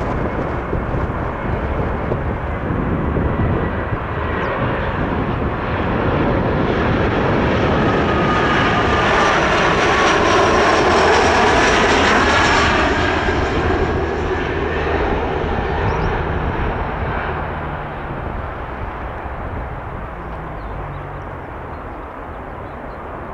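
Jet airliner's engines passing by: the noise builds to a peak about halfway through, with a high whine running through it, then fades away.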